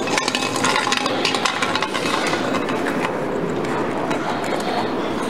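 Crowd noise in a busy room: many people talking at once, with scattered sharp clicks throughout.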